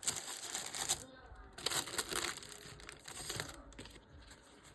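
Crinkling and rustling as small items are handled, coming in a few bursts with little clicks; the loudest bursts are right at the start and around two seconds in.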